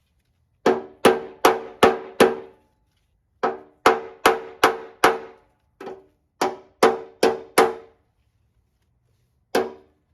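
A hammer striking steel about sixteen times in quick runs of four or five blows, each blow ringing with a metallic tone, with a last single blow near the end.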